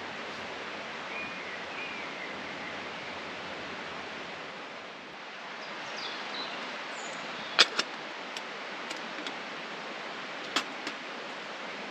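Steady rushing hiss of flowing river water, with a few brief bird chirps. Sharp clicks land just past the middle, two in quick succession, and another near the end.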